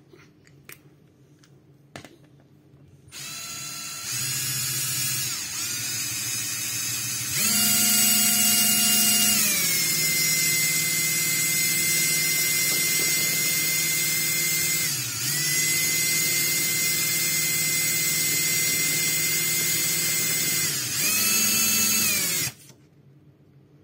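Cordless drill motor whining as it spins a paper disc, its speed set by the trigger. It starts about three seconds in, steps up in speed twice, settles into a steady whine with a brief dip midway, speeds up once more and cuts off shortly before the end.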